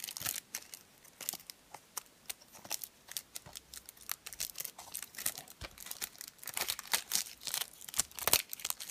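Plastic shrink-wrap film being picked at and peeled off a cardboard Blu-ray slipcase, with irregular crinkles and crackles, the film clinging to the case.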